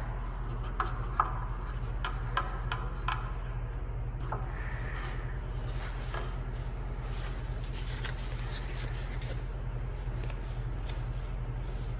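Small paintbrush being rinsed in a plastic cup of water, its handle giving a few light clicks against the cup in the first three seconds, then faint rubbing as the brush is wiped on a paper towel, over a steady low hum.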